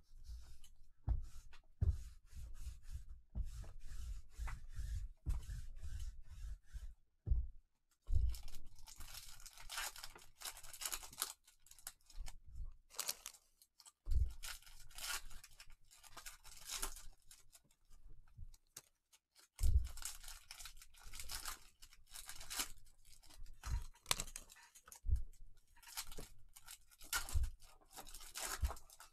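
Foil trading-card pack wrappers torn open and crinkled by gloved hands, with thumps of packs and cards being handled on a tabletop. For the first several seconds there is mostly low thumping and handling; from about eight seconds in, the crinkling and tearing comes in repeated spells.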